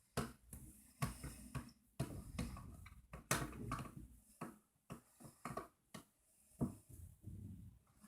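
Spoon and containers being handled and set down while mixing slime: irregular light knocks, clicks and scrapes.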